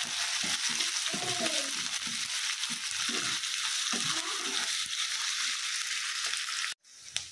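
Chopped onion sizzling in hot oil in a nonstick kadhai, stirred with a wooden spatula in repeated scraping strokes over a steady hiss; the onion is being sautéed for about a minute. The sound cuts off abruptly near the end.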